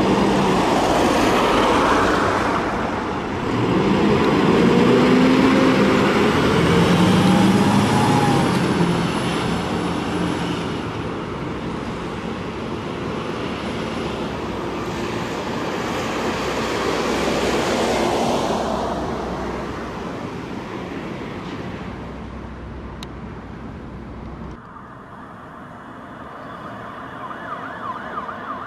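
Volvo aerial ladder platform fire engine pulling away under emergency response: its diesel engine revs up loudly through the gears, with a siren sounding. The noise fades as it drives off after about twenty seconds, and a warbling siren starts up near the end.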